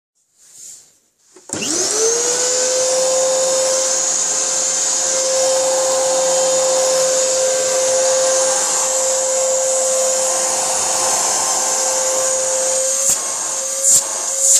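1999 Hoover Triple Vortex vacuum cleaner switched on: its motor spins up with a rising whine about a second and a half in, then runs steadily at full speed, with a few knocks near the end. The owner finds the machine clogged, with dry bearings and a motor needing a good service.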